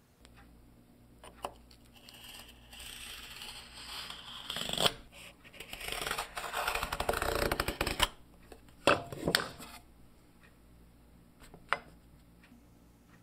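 Marking knife forged from a drill bit scoring a line across a wooden board along a straightedge: scratchy scraping for several seconds, with a handful of sharp knocks as the straightedge and knife are handled and set down.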